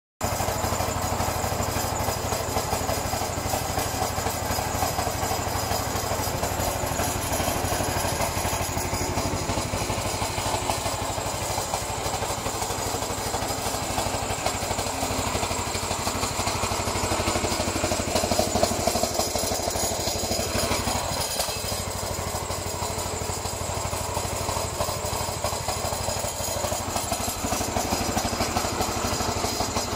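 Giant GT-190 walk-behind mower's 9 HP petrol engine running steadily as the self-propelled machine is driven along.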